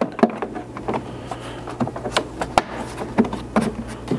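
Plastic inner trim panel of a Jeep Wrangler JL tailgate being pressed back on by hand, its push-in clips snapping home with a series of sharp clicks and knocks. A steady low hum runs underneath.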